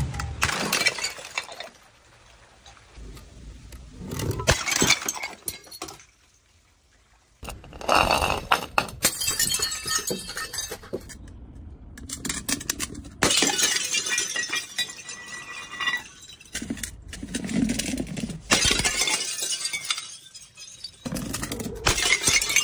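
Glass bottles tumbling down concrete stairs one after another and shattering on the steps, a series of loud crashes and clattering a few seconds apart. In the last crash a load of water beads and broken glass skitters down the stairs.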